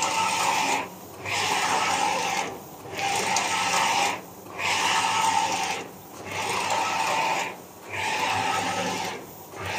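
Large-format flex printer with Konica Minolta 512i print heads printing at high speed: the print carriage sweeps back and forth across the flex with a whirring pass of about a second and a half, then a short lull at each reversal, about six passes in a row over a steady low hum.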